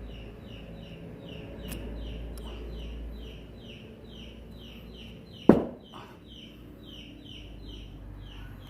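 Rapid, regular chirping, about three short falling chirps a second, goes on throughout over a low hum. About five and a half seconds in, a single sharp knock with a brief ring stands out loudest.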